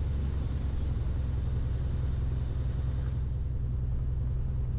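Cessna 182 Skylane's Continental O-470 six-cylinder engine and propeller running at low power while taxiing after the run-up: a steady low drone with no change.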